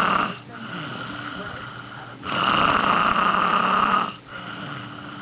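A woman snoring in her sleep: loud, harsh snores about every four seconds, each lasting about two seconds, with quieter breaths between. One snore is ending as the sound starts, and a full one comes in the middle.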